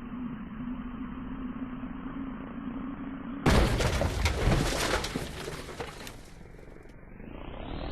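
Cartoon sound effects: a steady low hum, then a sudden loud explosion-like crash with crackling about three and a half seconds in, dying away over a couple of seconds. Near the end a rising whine starts.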